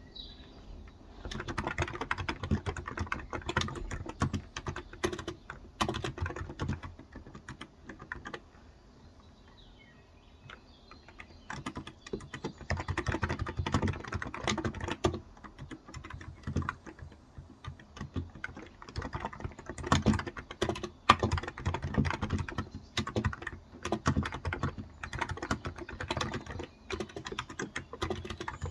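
Typing on a Cox Endeavor electro-capacitive (contactless) keyboard with 35 g switches: a steady patter of soft keystrokes in bursts, with a pause of a few seconds near the middle.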